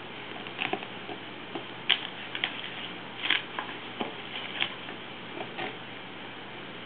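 A Boston terrier mouthing and carrying a plastic frisbee: irregular clicks and taps of teeth and the disc's rim against the plastic and the carpeted floor, the sharpest about two seconds in. A steady hiss lies underneath.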